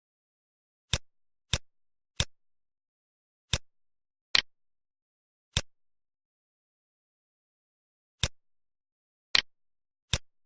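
Computer mouse clicking at irregular intervals, single clicks with a couple of quick double clicks, in otherwise dead silence.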